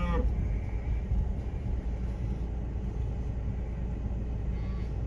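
The tail of a calf's bawl fades out right at the start. Then a steady low engine rumble runs on, with no other calls.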